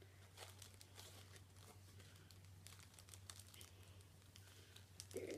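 Faint rustling and small clicks of a small cloth drawstring pouch being handled and pulled open by hand.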